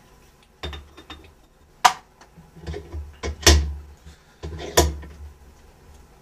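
Steel vise and clamp blocks being tightened around a pistol barrel: a few separate metal knocks and clanks, the loudest about halfway through.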